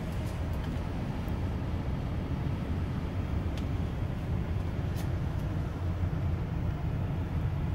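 Wright-bodied DAF double-decker bus engine running as a steady low drone, heard from inside the bus at the front while it moves slowly through the yard. A few faint ticks sit over it.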